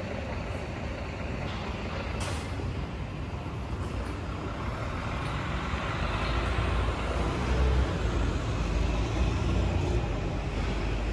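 Street traffic: a steady hum of passing vehicles, with a deeper low rumble that builds and grows louder through the second half. A short sharp hiss sounds about two seconds in.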